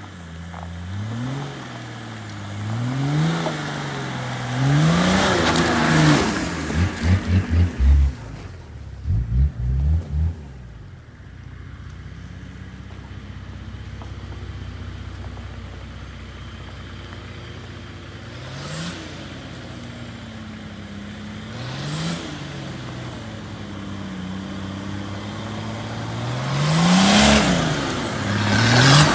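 Nissan Patrol 4x4 engines revving up and down over and over as the vehicles crawl over a rough dirt track, with a run of loud low thumps from about seven to ten seconds in. The engine note then settles to a steady lower run before revving again several times and growing loud near the end as a vehicle comes close.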